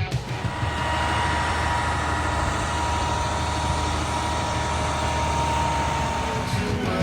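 A machine running steadily with a low hum and a thin, even whine.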